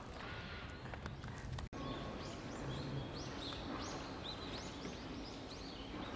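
Small birds calling outdoors: a run of short, high chirps that rise and fall, repeated about twice a second from about two seconds in, over steady outdoor background noise.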